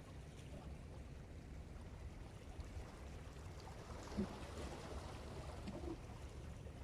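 Steady low rumble of wind and sea water along the shore, with a single faint knock about four seconds in.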